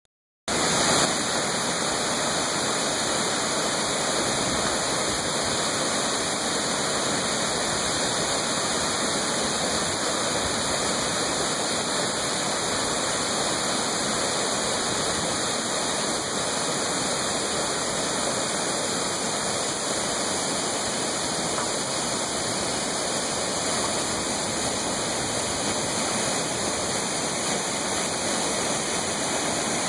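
Waterfall in heavy flow after heavy rain, its water pouring into a pool with a steady rush that starts about half a second in.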